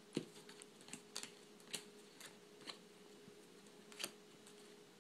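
About six sharp, separate clicks spaced irregularly, from computer input while playing a card game, over a faint steady hum.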